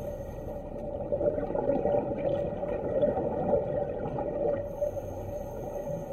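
A scuba diver breathing out through the regulator, heard underwater: a crackling rush of rising bubbles from about a second in until about four and a half seconds, over a steady low hum.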